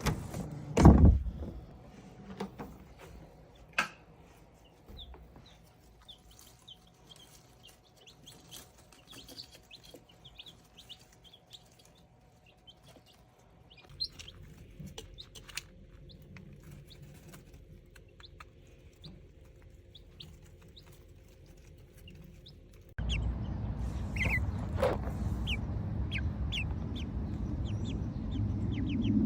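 Baby chicks cheeping softly and at a slow pace, a string of short high peeps: the relaxed, contented sound of healthy chicks that need no attention. A loud low thump about a second in, and the background changes twice, with a steadier, louder noise bed in the last few seconds.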